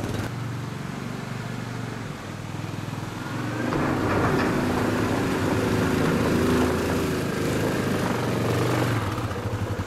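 Utility ATV engine running, the note rising and getting louder about three and a half seconds in as the quad pulls up a steep ramp under load.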